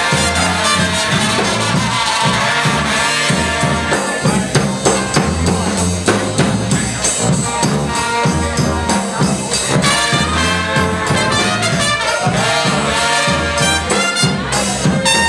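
Brass band playing live: a sousaphone bass line in repeated low notes under trumpet, trombones and baritone saxophone, with a steady beat from a bass drum and drum kit.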